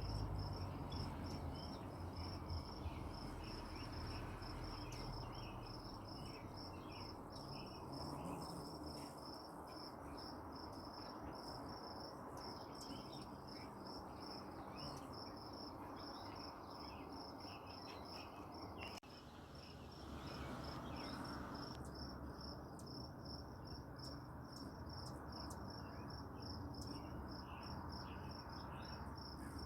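Crickets chirping in a steady, fast, even pulse, high-pitched, with scattered shorter chirps a little lower in pitch.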